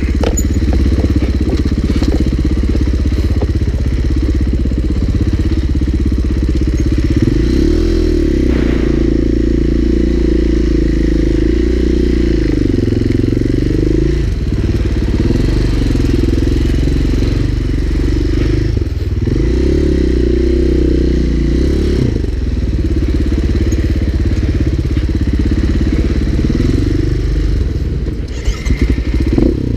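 Husqvarna FE four-stroke single-cylinder dirt bike engine running at low trail speed, the revs rising and falling over and over as the throttle is worked. The engine note dips briefly near the end.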